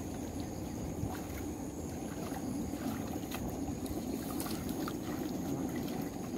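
Pond water sloshing and lapping as people wade waist-deep and work a mesh fishing net through it, with a few small splashes and drips.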